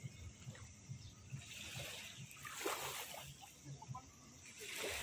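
Small waves washing in shallow sea water, with three soft surges of splash and slosh a second or so apart.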